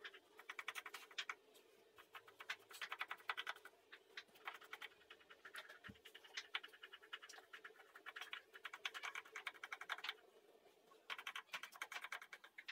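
Cleaver slicing through crisp breaded fried pork cutlets on a chopping board: runs of rapid crunching clicks, broken by short pauses about 2 s and 10 s in. A faint steady hum lies beneath, and there is one soft thump about 6 s in.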